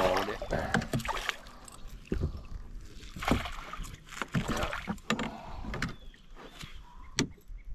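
Fish thrashing and splashing in a landing net at the side of a boat, followed by irregular knocks and clatter as the net and gear are handled against the boat.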